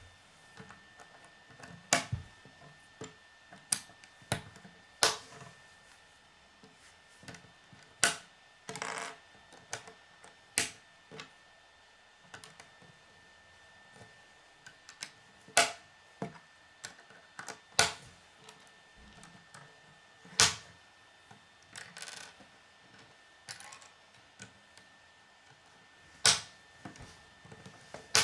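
Plastic K'nex rods and connectors clicking as they are snapped together and set on a wooden table: sharp, irregular clicks a second or two apart, with a short rustling sound about nine seconds in.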